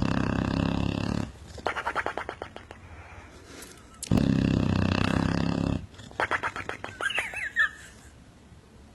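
Loud, motorcycle-like snoring: two long buzzing snores, each followed by a quick sputtering flutter, the second ending in a few high squeaky whistles.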